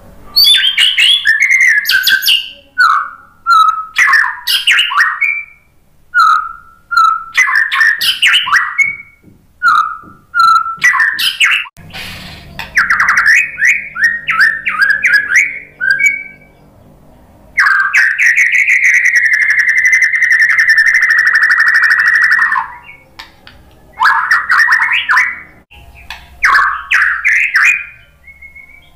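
White-rumped shama singing: a run of short, varied whistled and rattling phrases with brief pauses between them. About two-thirds of the way through comes a long unbroken buzzing trill lasting about five seconds, then a pause and more phrases.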